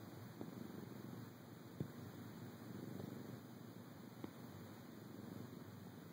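Domestic cat purring softly and steadily, with a few faint clicks.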